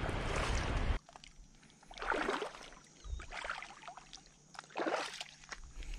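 A steady hiss that cuts off abruptly about a second in, then slow wading footsteps splashing through shallow water over reef rock, about one step every second and a half.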